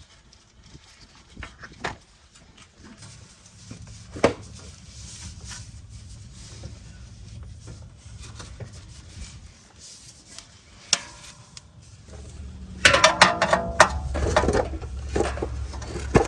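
Scattered metal clinks and knocks from a car muffler and its hanger bolts being handled and fitted, with single sharp knocks about four and eleven seconds in and a dense burst of rattling clanks about thirteen seconds in.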